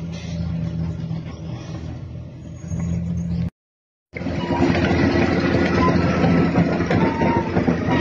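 Caterpillar D6R bulldozer's diesel engine running steadily with a low hum. About halfway through it breaks off for half a second, then comes back louder and fuller.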